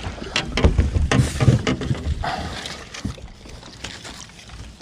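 Knocks, thumps and water splashing around a fishing boat as a hooked bass is brought in and handled.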